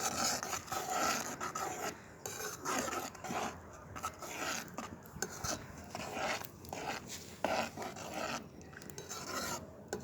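Metal spoon scraping the bottom of a pan in irregular repeated strokes as a thick mixture is stirred while it boils down.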